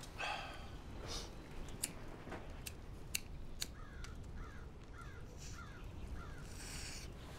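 A few sharp clicks and soft breathy puffs, a lighter being worked and a joint drawn on, while a bird gives five short calls in quick succession in the second half.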